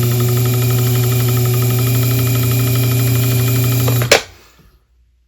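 Watchmaker's lathe motor running with a steady hum, switched off about four seconds in with a click, after which it falls quiet almost at once.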